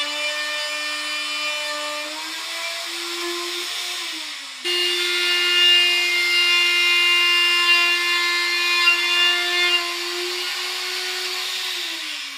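Electric router running at full speed: a loud, steady high motor whine over the rush of the bit. Its pitch rises slightly and sags briefly now and then as it takes load. There is an abrupt cut to a second take about four and a half seconds in.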